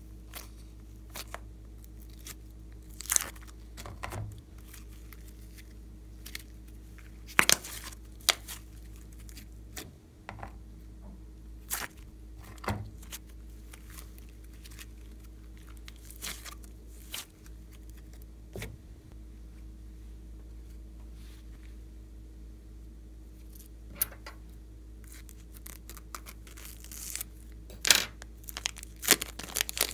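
Soft slime being poked, stretched and pulled apart by hand, giving scattered sticky pops and crackles. Near the end a plastic piping bag of slime crinkles in quick crackles as it is squeezed.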